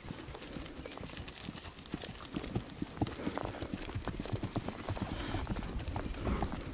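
Hoofbeats of Hucul horses walking on a grassy dirt track: an uneven run of soft clops from several horses at once.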